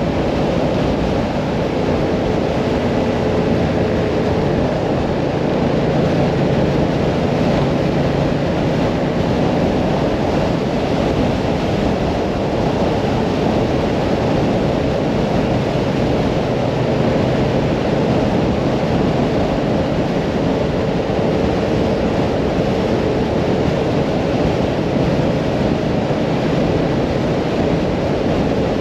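Hyosung Mirage 650 V-twin motorcycle cruising at a steady speed, its engine running under heavy wind noise on the microphone.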